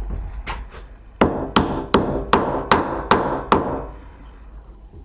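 A hammer knocking rusted old floorboard nails down into the joists: two light taps, then seven sharp blows at about two and a half a second.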